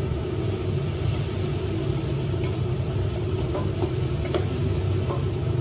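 Eggplant and egg sautéing in a pan: a steady sizzle with a few light clinks of the utensil as it is stirred, over a steady low hum.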